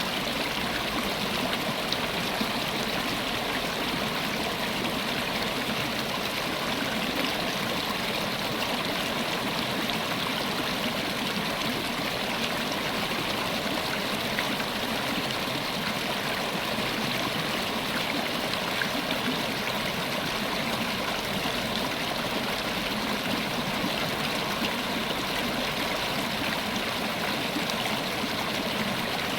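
River water flowing steadily over rocks, a constant rushing and gurgling with no change in level.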